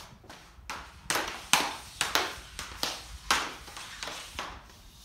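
Hockey stick fitted with an off-ice blade wrap stickhandling a puck on plastic dryland tiles: a quick run of sharp, uneven clicks, about two to three a second, as the blade taps the puck from side to side.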